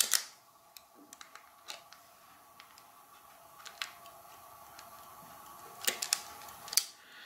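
Hand wire stripper clicking as the insulation is stripped off a thin actuator wire: a sharp click at the start, a few soft ticks, then a cluster of clicks about six seconds in and one more just before the end, over a faint steady hum.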